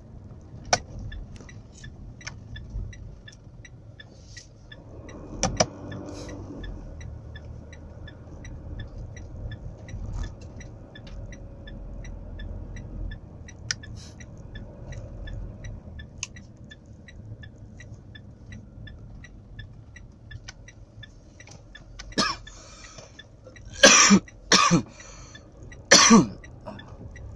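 Steady low road and engine noise inside a moving car's cabin. Near the end a man coughs about four times, a cough he has had for three days while feeling unwell.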